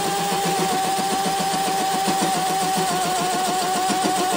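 Hand-held cordless drill running steadily, turning a 7/8-inch line boring bar as its tool bit cuts, with a whine that wavers slightly over a rapid rhythmic chatter. The chatter comes from the shaky hand-drill setup: the bar is bouncing and cannot be held steady in the cut.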